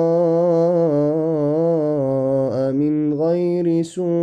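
A man's solo Quran recitation in melodic tajweed style, holding long drawn-out vowels with a slowly wavering, ornamented pitch, dry with no added echo or effects. The voice breaks off briefly near the end for a breath.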